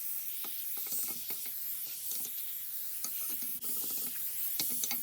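Compressed air hissing from a blow gun as it cleans a rusty hand plane, with scattered light clicks and knocks of metal parts throughout.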